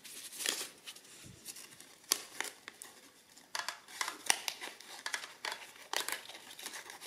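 Paper roll being handled and fed into an adding machine's printer: rustling of the paper with irregular small clicks and knocks against the machine's parts, several coming close together about halfway through.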